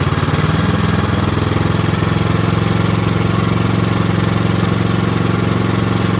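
Craftsman snowblower's 123cc four-stroke overhead-valve engine running steadily at low speed. It won't rev up, which the owner takes for a carburettor problem, the carb having been tampered with.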